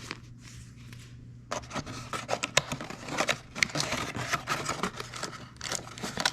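Camera accessory packaging being handled and unwrapped by hand: rustling, rubbing and scraping with many small clicks, picking up after about a second and a half of quieter handling.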